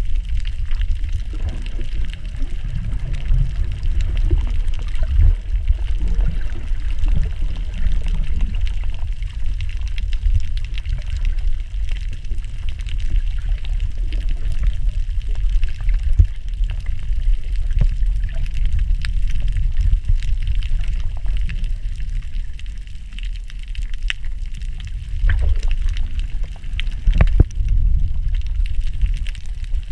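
Muffled underwater water noise picked up by a submerged camera: a steady low rumble and sloshing of moving water, with a few sharp clicks in the second half.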